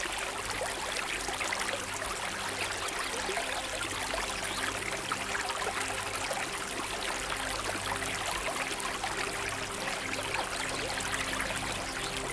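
Shallow stream running over rocks: a steady rush of flowing water that cuts in suddenly at the start.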